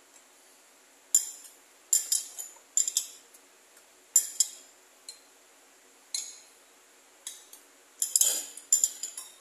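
Metal spoon clinking and scraping against a bowl while scooping gelatin cubes in milk: irregular sharp clinks, with a longer scrape near the end.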